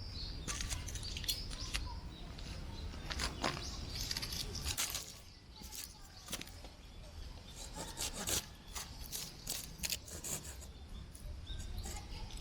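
Strong wind buffeting the microphone as a steady low rumble, with irregular rustling and scraping handling noises over it.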